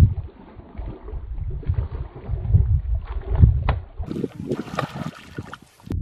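A hooked fish thrashing at the surface of shallow ditch water, splashing in irregular surges about a second apart.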